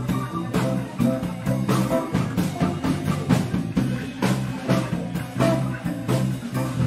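Electric blues band playing live: electric guitars, a drum kit keeping a steady beat about twice a second, and a keyboard over a bass line.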